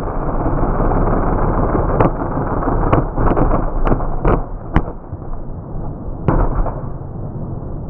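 Mud racing buggy's engine running loudly, punctuated by a series of sharp backfire bangs as flames shoot out of the engine and exhaust. The bangs come about two to five seconds in, seven or so in quick succession, with one more a little later.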